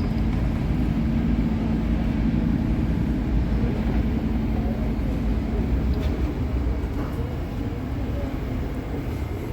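Passenger train running, a steady low rumble of the moving coaches; a faint hum fades out about three seconds in.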